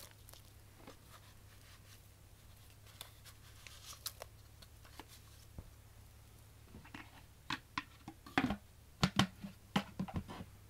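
Scattered light clicks and crinkles of small handling noises, with no vacuum running. They are sparse at first and come thicker from about seven seconds in.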